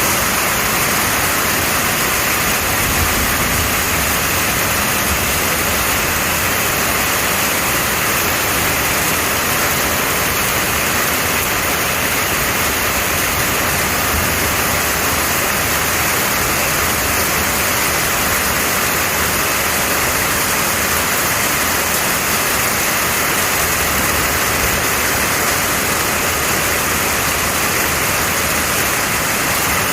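Heavy rain shower, a steady, unbroken downpour with an even hiss.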